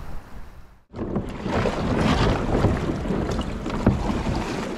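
Kayak paddle strokes splashing in the water, with wind buffeting the microphone; the sound comes in about a second in, with one sharp knock near the end.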